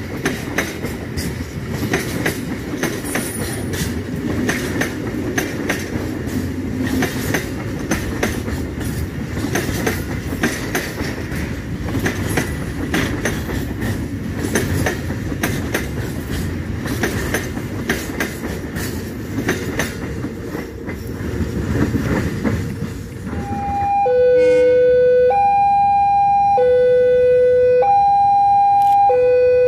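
A freight train of empty flat wagons and tank wagons rolls slowly past, its steel wheels clattering and clicking over the rail joints. About 24 seconds in, this gives way to a level-crossing warning alarm: an electronic tone that alternates between a high note and a lower note, each held for about a second.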